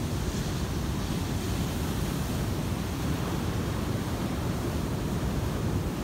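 Pacific Ocean surf washing in steadily, foaming whitewater rushing over the shallows, with wind buffeting the microphone.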